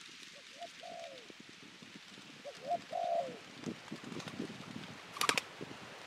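A dove cooing: two phrases, each a couple of short coos followed by a longer falling coo, the second louder. A brief rattle of sharp clicks near the end.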